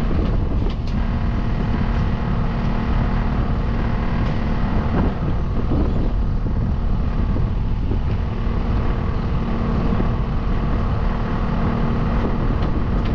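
Kubota skid steer's diesel engine running steadily, with a constant low hum and a few faint clicks.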